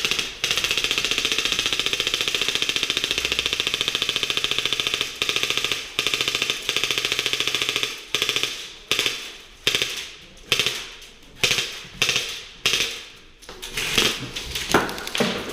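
Airsoft guns firing: a long rapid full-auto stream of shots for about the first half, with a couple of short breaks, then a dozen or so separate shots and short bursts, each echoing in the hall.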